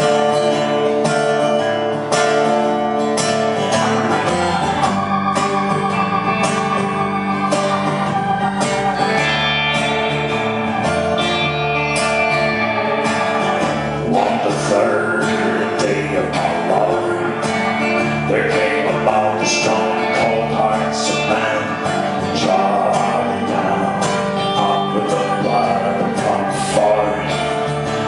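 Live band music with guitar over sustained, organ-like held tones, playing steadily.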